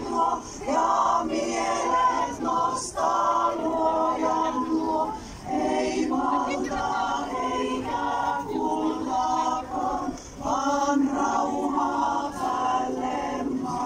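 Women's choir singing together in sustained phrases, with brief breaks between phrases.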